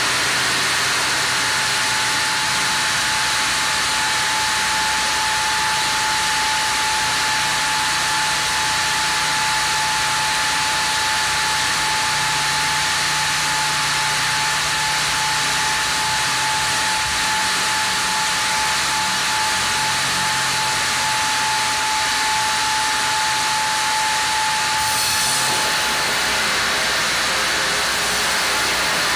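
Sawmill band saw cutting a Japanese kalopanax (sen) log: a loud, steady hiss with a constant whine. About 25 seconds in the whine drops out and the hiss changes, while the machinery keeps running.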